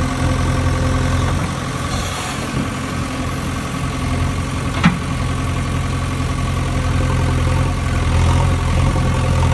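Steady idling rumble of a heavy engine, the sound that goes with a toy backhoe loader at work. About five seconds in, a single sharp clack as rocks drop from the loader bucket into the plastic dump-truck bed.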